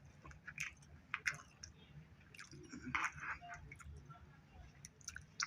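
A person chewing a mouthful of fried rice close to the microphone: irregular soft wet clicks and smacks of the mouth.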